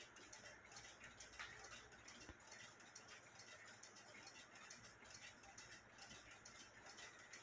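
Faint, steady ticking of a WUBA Warmink Dutch pendulum wall clock, running after repair. A single louder click comes a little over two seconds in.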